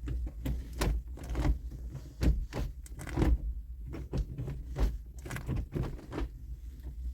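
Gear shift lever being worked by hand: a scattering of short clicks and knocks over a low steady hum.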